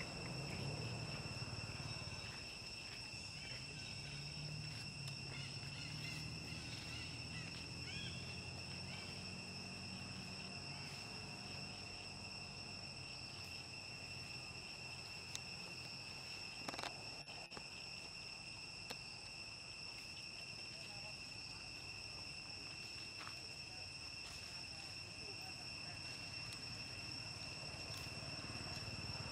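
Forest insects droning steadily in an unbroken high-pitched whine, with a faint low hum beneath and one sharp click a little past halfway.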